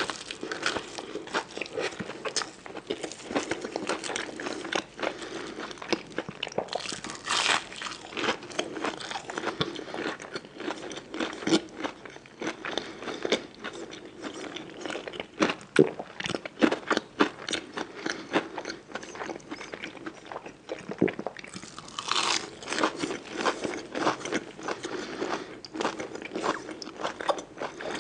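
Close-miked eating sounds: a person biting into and chewing crunchy food, with dense crackling crunches and louder bites about seven seconds in and again past the twenty-second mark.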